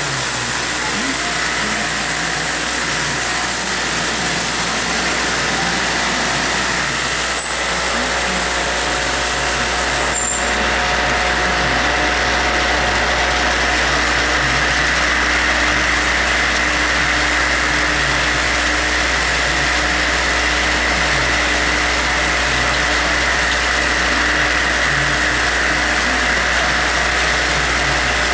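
Stainless steel vibratory bowl feeder running steadily with a low, constant hum from its vibratory drive, while a load of plastic bottle caps rattles and chatters against the steel as they travel around the bowl and up the spiral track.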